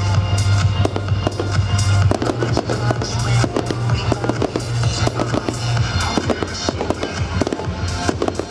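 Fireworks going off in quick succession, many bangs and crackles, over loud display music with a heavy bass note held for the first six seconds or so.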